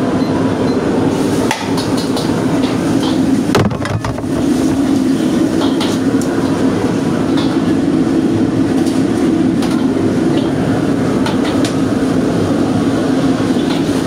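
Commercial wok station running with a loud, steady rushing noise from the burner and range, while a metal ladle knocks and scrapes against the wok every so often.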